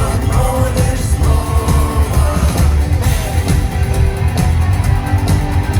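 Rock song with singing over a steady, bass-heavy beat.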